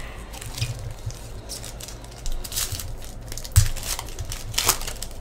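Hockey trading cards and their foil pack wrappers being handled: irregular crinkling and rustling as cards are flipped over and stacked, with a sharper knock about three and a half seconds in.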